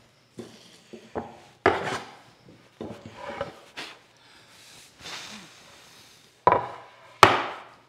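A wooden board rubbed and slid against a wooden workbench top to mark its high spots while it is flattened by hand, with a few wooden knocks. The two loudest knocks come near the end as the board is set back down on the bench.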